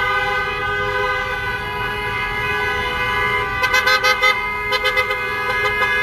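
Car horns honking from a slow convoy of passing cars: several horns held down together in a steady chord, with a run of short repeated toots a little past halfway.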